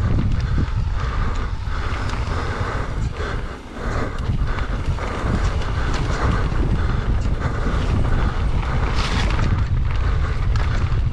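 Wind buffeting a GoPro's microphone as a mountain bike rolls fast down a dirt trail, with tyre noise and scattered knocks and rattles from the bike over rough ground. The wind noise drops briefly about three and a half seconds in.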